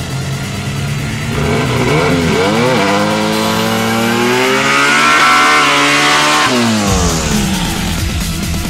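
VW Beetle drag car's engine revving hard during a burnout, the pitch wavering at first, then climbing and holding high for several seconds before dropping away sharply about seven seconds in.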